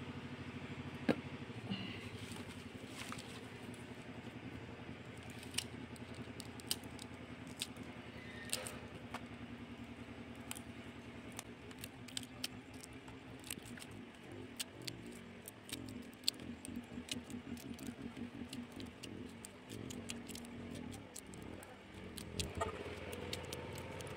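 Roselle calyces being snapped and pulled off their stems by hand, a run of irregular sharp clicks and small crackles with leaf rustling, busiest in the second half. A steady low hum runs underneath.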